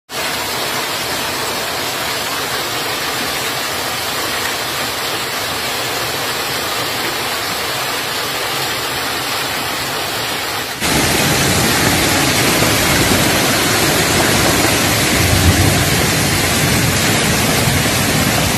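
Heavy rain and hail pouring down, a steady dense hiss. About eleven seconds in it changes abruptly to a louder, fuller rush.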